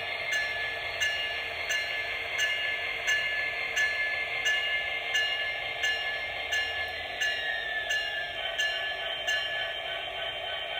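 MTH model of a CSX SD70ACE diesel, its sound decoder playing diesel locomotive sounds through the model's small speaker. A steady engine hum runs under a ringing strike repeated about every 0.7 seconds, and a tone glides down about seven seconds in.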